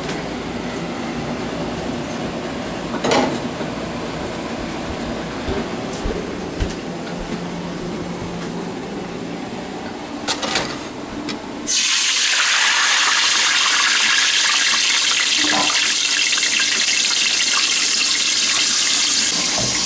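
Hot cooking grease in a steel pot bursts into a loud, steady sizzle about twelve seconds in. Before that there are a few clatters of pans being handled.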